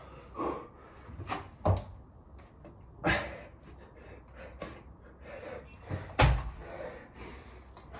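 Dull thuds of three-pump burpees on an exercise mat: hands and feet landing as the body drops into push-ups and the feet jump back in, the loudest thud about six seconds in, with hard breaths between.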